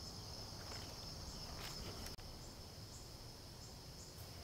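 Faint, steady high-pitched trilling of insects, with a few soft ticks over it.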